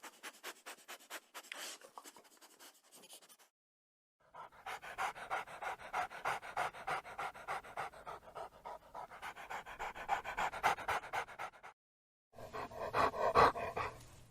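Dog panting quickly, in three separate takes split by short silences: a faint quick pant first, then a louder run lasting about seven seconds, then a short loud burst near the end.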